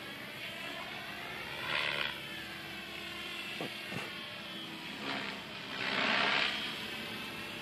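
MSH Protos 500 electric RC helicopter in flight: a steady whine of the motor and rotor whose pitch bends slowly up and down as it moves about the sky. It swells louder briefly about two seconds in, and again for longer around six seconds.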